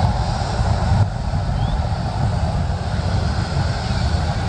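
Steady noise of jet aircraft engines, with wind buffeting the microphone.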